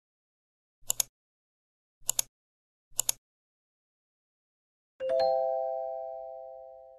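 Intro sound effects for an animated loading bar: three short double clicks about a second apart, then a bell-like chime about five seconds in that rings on and slowly fades as the bar reads complete.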